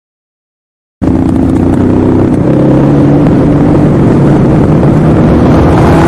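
AI-generated motorcycle engine sound from Hunyuan-Foley, made from the prompt "engine revving loudly and accelerating": a loud engine accelerating, its pitch climbing slowly. It starts suddenly about a second in.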